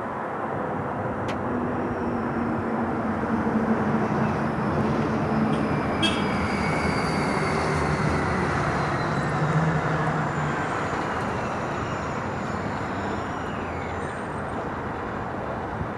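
Airbus A380 climbing out after takeoff: the steady rumble of its four jet engines, swelling in the middle and easing off near the end, with faint high whines gliding slowly down in pitch.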